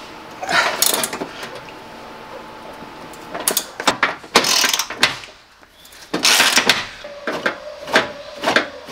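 Hand ratchet wrench clicking and metal clinking as bolts are worked loose on a van's metal seat base, in several short bursts with pauses between.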